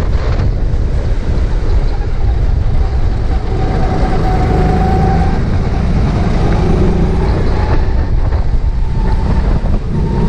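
Go-kart running at speed through corners, its engine note rising and falling faintly under heavy wind buffeting on the onboard camera's microphone.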